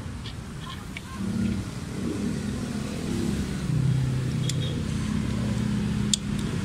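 A vehicle engine running nearby, its low hum shifting in pitch, with a few faint sharp ticks.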